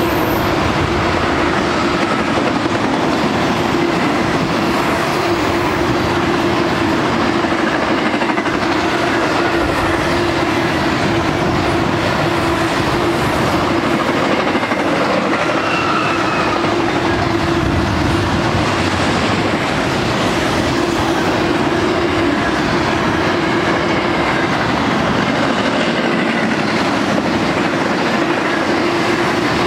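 Double-stack intermodal container cars of a freight train rolling steadily past: a continuous rumble and clatter of steel wheels on rail, with a steady low hum running under it.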